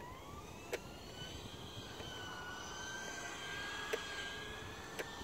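RC car's motor whining, its pitch rising as it speeds up and then holding steady, growing louder as the car comes closer. A few sharp clicks sound about a second apart.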